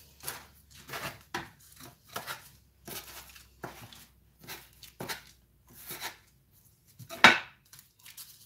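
Hands and a metal bench scraper working a sheet of cookie dough on baking paper: a run of short scraping and patting strokes about every half second as the edges are pressed square, with one louder stroke about seven seconds in.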